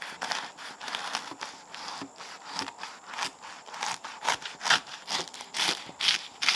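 A knife sawing back and forth through the crisp baked lavash crust of a meat pie, a steady run of crunchy scraping strokes, about three a second, getting louder near the end.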